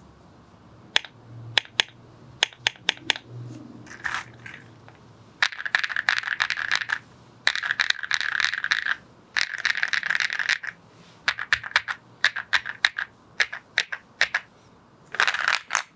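Mechanical keyboard keystrokes on a Rainy75 with KTT Baby White linear switches. Scattered single key clacks give way to several fast runs of repeated key presses, each about a second long.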